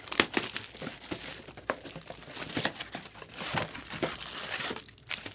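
Packaging of a trading card box crinkling and tearing as it is unwrapped and opened by hand, a run of crackles and small rips.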